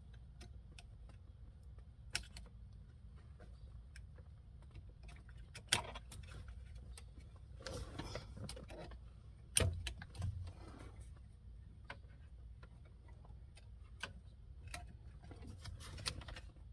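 Scattered small clicks and taps as a knife blade pries the tabs of the key-chip security sensor ring off a Ford Expedition's ignition lock cylinder housing. There are a handful of sharp clicks, the loudest a little before ten seconds in, over a faint low hum.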